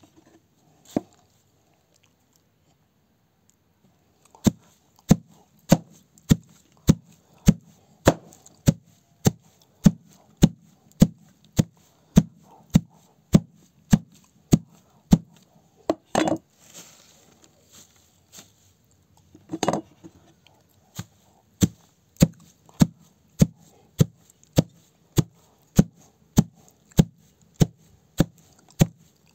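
A knife cutting through madımak (Anatolian knotweed) stems at ground level in a steady rhythm: a sharp snick a little under twice a second, beginning a few seconds in, with two longer, louder noises in the middle.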